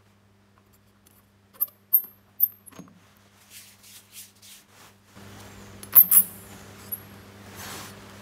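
Metal cup of a Casagrande liquid limit device being wiped with a tissue: a few sharp metallic clinks as the cup knocks on its mounting, with soft rubbing between them and one louder clink near the end.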